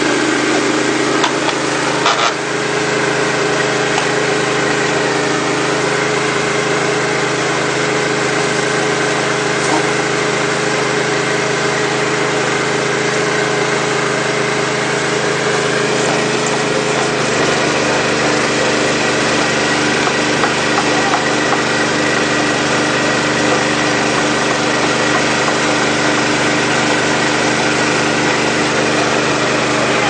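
Steady mechanical drone of a RamAir dryer-vent cleaning system running, its air-driven hose working inside a lint-filled dryer vent. There is a short knock about two seconds in, and the drone's pitch shifts slightly about seventeen seconds in.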